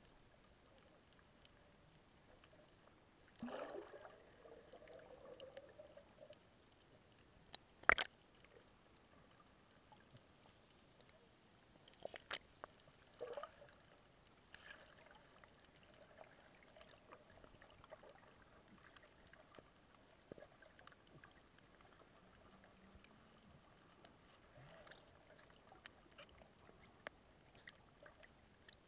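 Muffled underwater ambience heard with the camera under water: mostly very quiet, with a brief rising sound about three and a half seconds in, a sharp click about eight seconds in, two more clicks a few seconds later, and scattered faint ticks after that.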